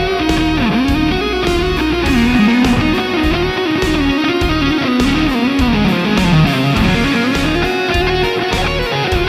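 Electric guitar played through a Mooer GE150 multi-effects processor on its P073 patch: a sustained lead melody with pitch bends and vibrato over a steady low rhythmic accompaniment.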